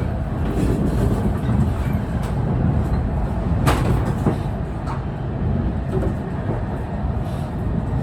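E6 series Shinkansen running, heard from inside the passenger car: a steady low rumble with a few sharp clicks, the loudest about four seconds in.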